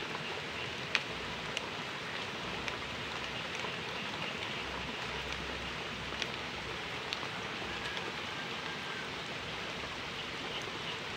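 Steady hiss of water from a small stream running among rocks, with a few light ticks, the sharpest about a second in.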